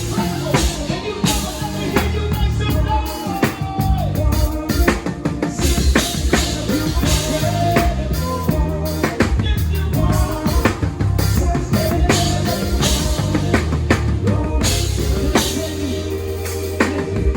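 A live band playing at a sound check: a drum kit hits steady kick and snare beats over a stepping bass line, with held melodic notes from other instruments on top.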